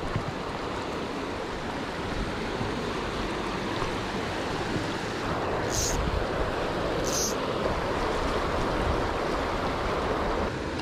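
Mountain river rapids rushing steadily into a rock-walled pool. Two brief high hisses come about a second apart near the middle.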